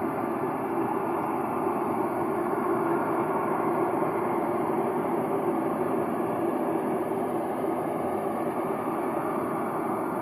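A continuous, unpitched rumbling noise from the sky, swelling slightly a few seconds in: the unexplained sky noise known as a skyquake ('cielomoto').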